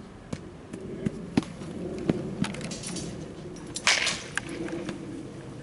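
Bat striking a pitched ball in a batting cage with one sharp crack about four seconds in, the loudest sound, followed by a brief rattle. Lighter knocks come earlier, a handful of short separate hits.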